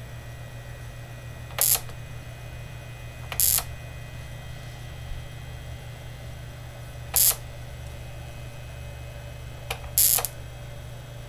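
Steady low mains hum from a running two-transformer setup, broken by about five sharp, irregularly spaced electrical snaps, one of which lines up with a blue spark at the switch block.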